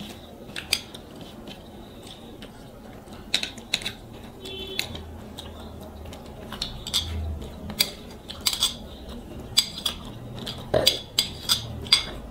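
A metal spoon clinking and scraping against a plate as curry is served, in a string of short, sharp clinks, some ringing briefly, coming more often in the second half.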